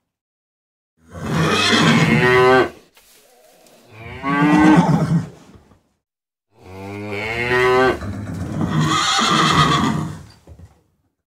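A cow mooing: three or four long calls with short pauses between them, the first about a second in. It is a recorded animal sound effect, since only toy animals are on screen.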